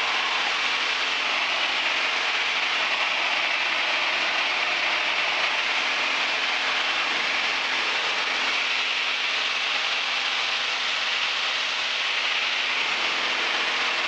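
Steady in-flight cabin noise of a Piper Warrior: the four-cylinder Lycoming engine and propeller running at cruise power under a constant rush of airflow, with no change in pitch or level.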